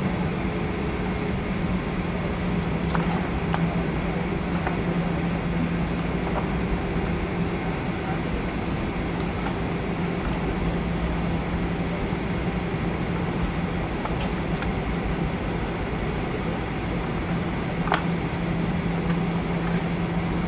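Boeing 737 airliner cabin noise on the ground just after landing: a steady rushing hum with a constant low drone from the engines and the rolling aircraft, and a few faint clicks.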